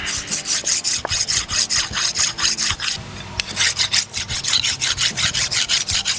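Wet sandstone rubbed back and forth over the annealed steel blade of a seax, cleaning the surface in quick, even scraping strokes, about five a second, with a short pause about three seconds in.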